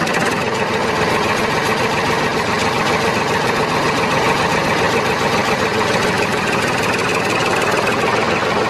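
Engine running steadily, with an even, rough rumble that does not change.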